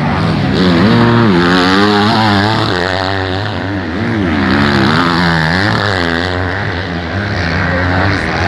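Motocross bike engines revving hard, their pitch rising and falling over and over as the riders work the throttle around the track.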